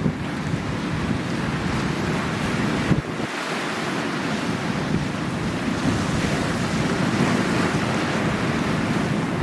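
Sea waves washing on the shore, with wind buffeting the microphone in a heavy low rumble that briefly lets up about three seconds in.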